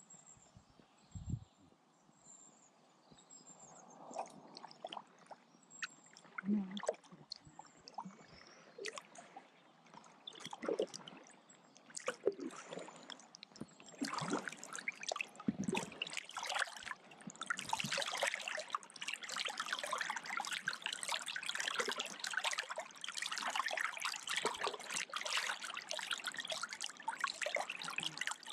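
Kayak paddle in the water: splashes and water dripping off the paddle blades, sparse and quiet at first, then denser and louder from about halfway through.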